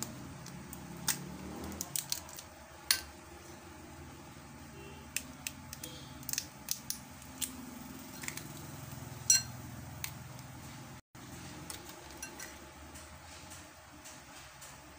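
A raw crab being pulled apart by hand, its shell cracking and snapping in a scattered series of sharp clicks, most of them in the first ten seconds.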